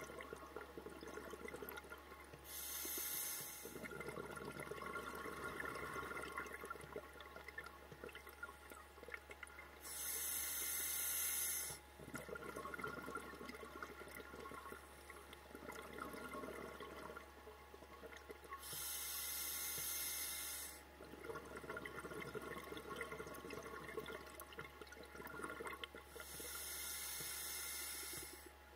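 Scuba diver breathing through a regulator underwater: a rushing burst of about two seconds comes about every eight seconds, four times, with bubbling and crackle in between.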